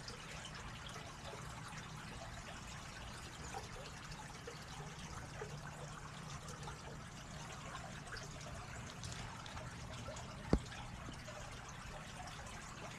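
Shallow creek water trickling and flowing gently and steadily. One sharp click about ten and a half seconds in.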